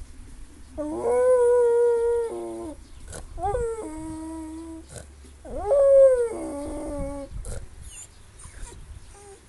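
Dog howling in three drawn-out, siren-like notes, each rising in pitch and then holding steady or falling away, with fainter sounds after the last one.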